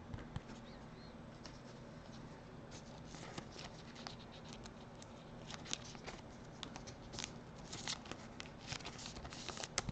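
Faint, irregular ticks and light scratches of fingers handling and turning a trading card, sparse at first and coming more often from about three seconds in.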